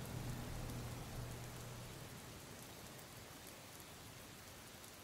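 Steady rain falling on wet pavement, a faint even patter with scattered drop ticks, easing slightly toward the end. A low hum underneath fades out about two seconds in.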